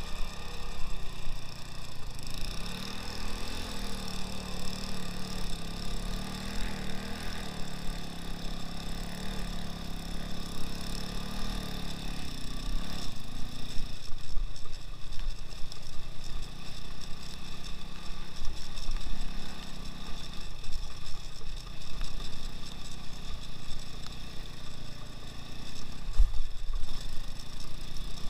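Engine of an all-wheel-drive 2x2 off-road motorcycle running steadily while riding. Its note changes and drops lower about halfway through.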